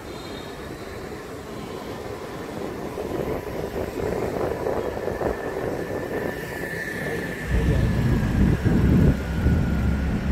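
Traffic and road noise from driving through city streets, with a faint steady whine throughout. A louder low rumble sets in about seven seconds in.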